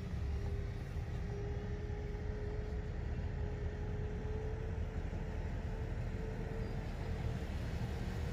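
Steady low rumble of wind on the microphone, with the distant hum of the RC plane's electric motor and propeller faintly above it as a single tone that drifts slowly up in pitch and fades near the end.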